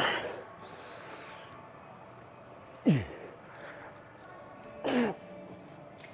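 A man grunting with effort on each rep of a cable chest fly: three short grunts about two to three seconds apart, each falling steeply in pitch.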